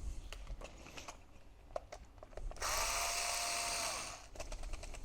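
A small electric screwdriver runs for about a second and a half in the middle, its motor whine rising as it starts and dropping as it stops, with light clicks of screws and metal parts being handled before and after.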